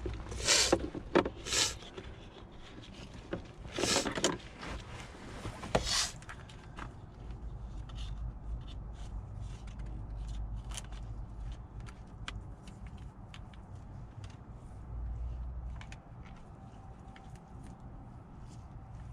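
Plastic scraping and rustling as a new pleated cabin air filter is handled and pushed into its plastic holder. There are four louder scrapes in the first six seconds, then light clicks and handling over a low steady hum.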